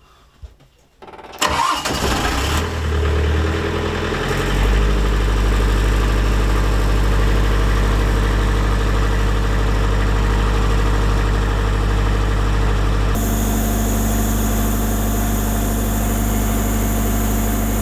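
A boat's diesel engine being cranked and catching about a second in, then running steadily at idle; its note changes abruptly near the end.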